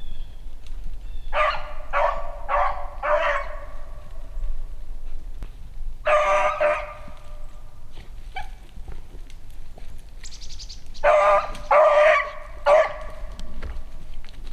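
Beagle puppy barking and baying in short bouts: a quick run of about four calls, one longer call a few seconds later, then three more near the end.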